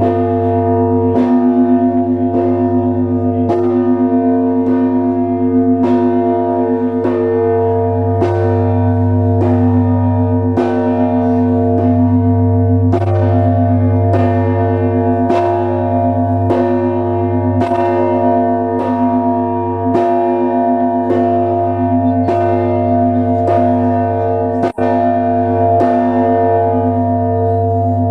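The bells of the Trinity-Sergius Lavra bell tower are ringing a Russian Orthodox peal. A deep bass bell is struck about every two seconds and rings on underneath, while smaller bells strike quickly in between.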